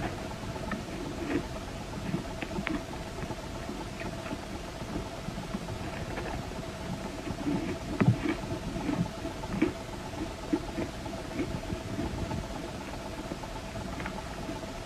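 Chewing and crunching ice chunks coated in matcha powder, with irregular crackles and snaps, the loudest about eight seconds in, over a steady hum.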